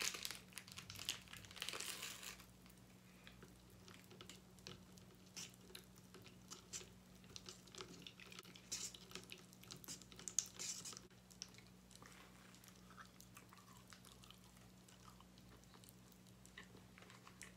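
Plastic candy packet crinkling and tearing open, then faint scattered crackles and rustles as candy is sprinkled into a plastic cup, with a brief busier patch of crackling about nine seconds in. A steady low electrical hum sits underneath.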